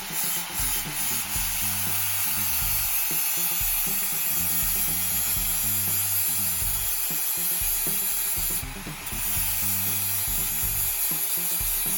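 Power grinder sharpening a steel lawn mower blade, a steady grinding hiss that eases off briefly about nine seconds in, over background music with a stepping bassline.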